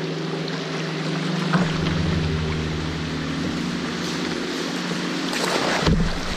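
Kayak running a shallow riffle: steady rushing and rippling of river water around the hull. Near the end comes a louder splash as water sprays up over the bow.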